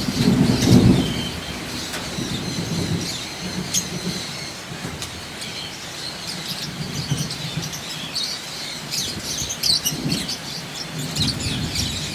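A flock of lovebirds chattering, with many short high chirps that grow busier near the end. In the first second or so a low rumble is louder than the birds, then it dies away.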